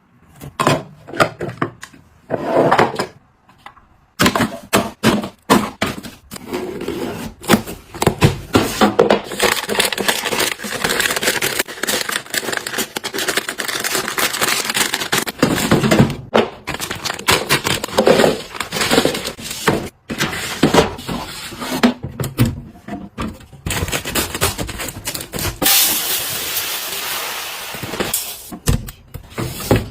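Household items being handled and set down: a busy run of knocks, clicks, scrapes and rustles, with a steady hiss-like noise for about two seconds near the end.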